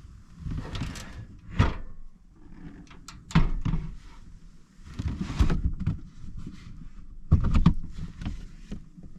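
Gear being moved and rummaged through inside a truck-bed camper: a run of clunks and knocks, about four louder ones roughly two seconds apart, with softer rustling and handling between them.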